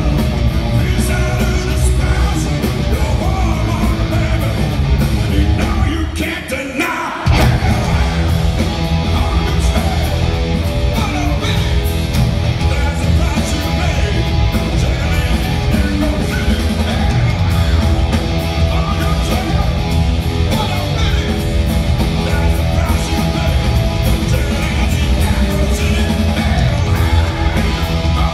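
A live hard-rock band playing: distorted electric guitars, bass and drums under a shouted, sung lead vocal, heard through a concert hall's PA. About six seconds in the band stops for about a second, then crashes back in together.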